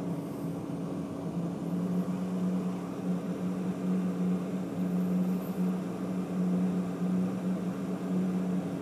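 Everlast PowerTIG 210EXT inverter TIG welder running just after power-on, its cooling fan giving a steady hum and rush of air. The sound is loud, like a jet engine.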